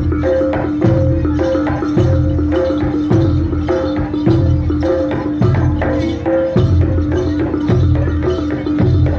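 Live jaranan dor ensemble music: a deep drum beats about once a second under fast percussion and repeated ringing gong tones.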